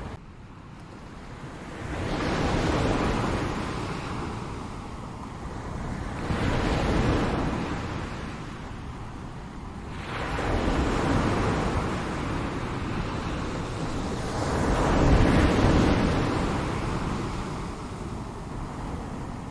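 Ocean surf: waves breaking and washing in, four swells of rushing noise, each rising and fading over a few seconds, about one every four seconds.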